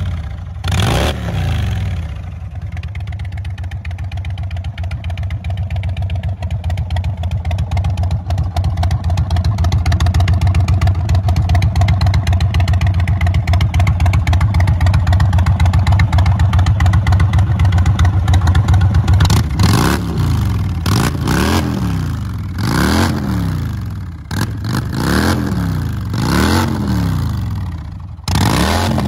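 2021 Indian Chief Dark Horse's Thunderstroke 116 air-cooled V-twin running through a Freedom Performance Sharp Curve Radius exhaust. Two quick revs at the start, then a long steady loping idle. From about two-thirds of the way through comes a run of about seven short throttle blips, each rising and falling.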